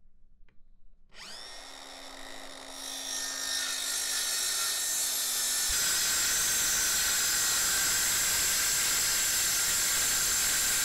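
Bosch 18V cordless circular saw starting up about a second in and spinning up to a steady high whine. From about halfway through, the blade cuts into a thick wooden beam, and the sound turns into a louder, steady cutting noise.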